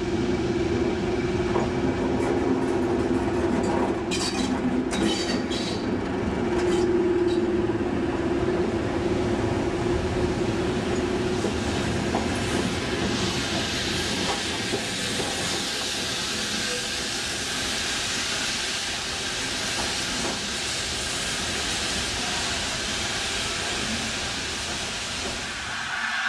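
Class 31 diesel locomotive running through the station with a steady engine drone, and a few sharp metallic clanks about four to six seconds in. From about halfway, BR Standard 8P Pacific 71000 Duke of Gloucester, coupled behind it, passes with a steady hiss of steam.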